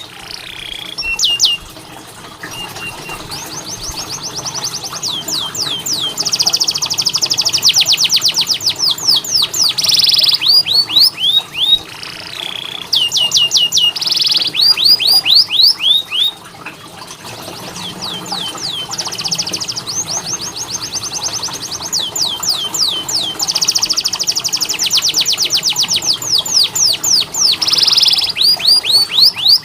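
Domestic canary singing continuously: a long song of fast trills, each a rapid run of the same short downward-sliding note repeated many times a second, switching to a new trill every second or two.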